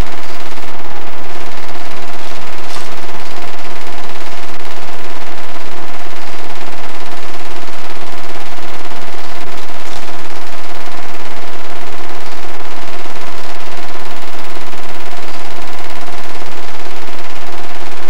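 8mm film projector running, a loud, steady rapid clatter of its film-advance mechanism with a constant hum underneath.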